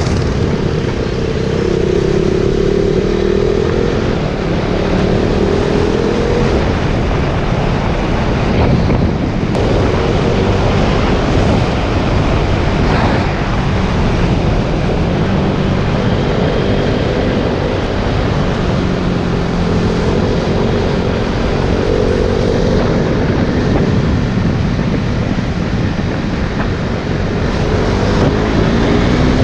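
KTM Duke 390's single-cylinder engine under way through its stock exhaust, its revs rising and falling every few seconds as it pulls through the gears and eases off, over steady wind and road noise.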